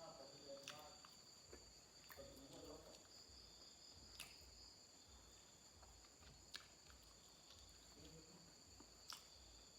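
Near silence: a faint, steady high-pitched cricket chirring runs throughout, with four sharp clicks from eating and chewing scattered across it.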